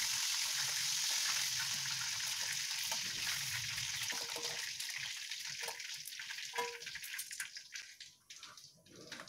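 Chicken frying in hot oil in a wok, a steady sizzle that thins out and fades over the last few seconds as the pieces are lifted out. A few light clicks of metal tongs against the wok and plate come near the end.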